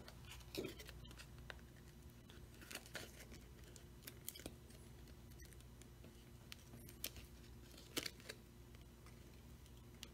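A handful of faint scrapes and clicks from business cards and a plastic pry pick being worked along the seam of a Samsung Galaxy Note 8's glued glass back cover, against near silence, while the back cover is being pried open.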